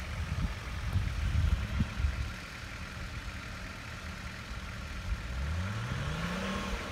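Off-road 4x4 engine running at low revs with a low rumble, then revving up steadily for about two seconds near the end.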